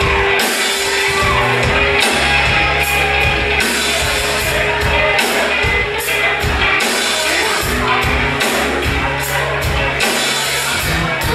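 Live rock band playing loud: electric guitars, bass guitar and a drum kit, with regular drum and cymbal hits over bass and guitar lines.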